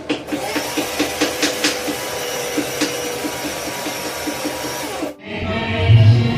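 Electric mixer grinder running at full speed with a steady whine, alongside a wooden pestle pounding about four times a second; the grinder cuts off abruptly near the end and background music with a beat takes over.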